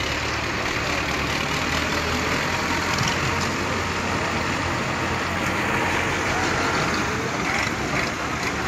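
Massey Ferguson 240 tractor's three-cylinder diesel engine running steadily under load as it pushes a trolley loaded with earth.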